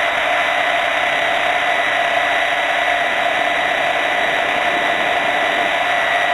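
Hurricane 550 R/C helicopter heard from its own onboard camera: a steady mechanical whine from its drive, at a constant pitch, over a loud rushing noise from the rotors.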